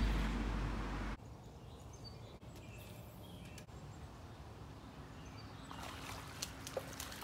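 Wind buffeting the microphone with a heavy low rumble for about the first second, cutting off abruptly. Then quiet outdoor ambience with faint bird calls, a faint steady hum from about five seconds in, and a few faint clicks near the end.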